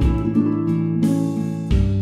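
Background music: an acoustic guitar playing chords over a steady bass, with a new chord coming in near the end.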